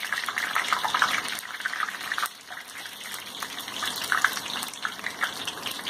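Batter-coated spinach leaf fritters sizzling as they deep-fry in hot oil, the sizzle dipping briefly about two and a half seconds in.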